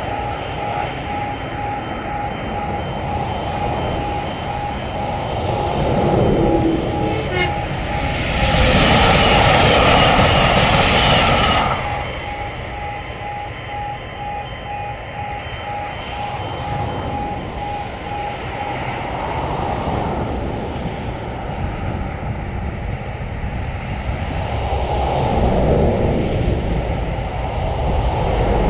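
A Class 397 electric passenger train passes through the crossing at speed, a loud rush about eight seconds in that lasts about four seconds and cuts off sharply. A pulsing beep goes on while the crossing's stop light shows red and stops about two-thirds of the way through, and a low rumble of wind runs underneath.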